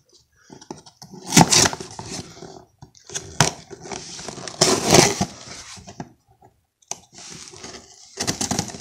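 A cardboard shipping box being torn open and its packing handled: irregular bursts of tearing, scraping and rustling, loudest about a second and a half in and again around five seconds.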